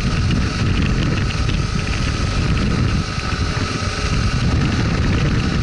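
Motorcycle engine running steadily while riding at speed on a dirt road, mixed with heavy wind rumble on the microphone.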